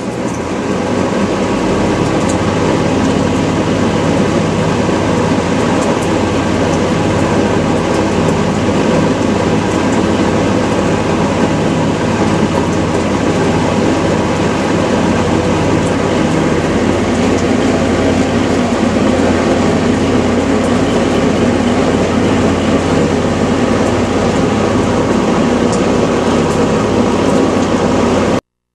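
Superlectric electric box fan, freshly cleaned and re-lubricated, running on its single speed: the motor hum and blade whoosh build up over the first second or two as it comes up to speed, then hold steady.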